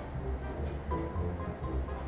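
Background music: short, light notes at changing pitches over a steady low bass.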